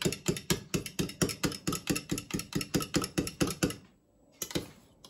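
A fork beating eggs in a clear measuring jug: quick rhythmic taps of the fork against the jug, about six a second, with a brief pause near the end.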